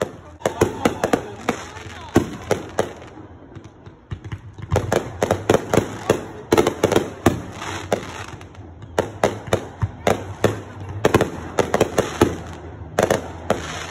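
Fireworks display: aerial shells bursting overhead in quick volleys of sharp bangs and crackles, with a short lull about four seconds in.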